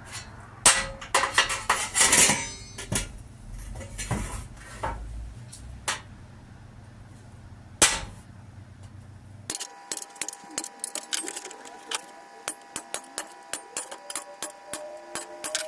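Hand tools knocking and clattering on sheet steel: a few sharp knocks and rattles in the first half, then a run of light taps, roughly two a second, on the metal.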